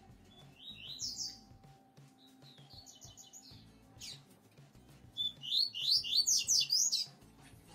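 Caged male double-collared seedeater (coleiro-papa-capim) singing in short phrases of quick, high, rising notes, the loudest and fastest run coming about five seconds in and lasting roughly two seconds.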